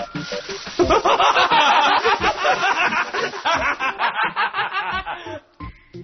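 A burst of laughter starting about a second in, dense and continuous for about four and a half seconds, then cutting off.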